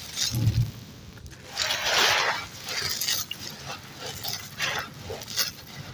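Dry, crusty dirt chunks crumbling and crushing with a gritty crunch, in several uneven bursts, the longest and loudest about two seconds in, with small crackles between.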